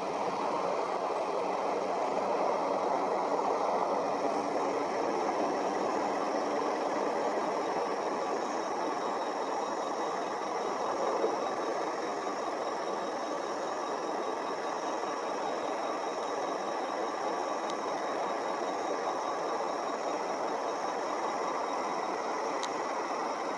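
A vehicle's engine running steadily, with a faint steady high whine above it.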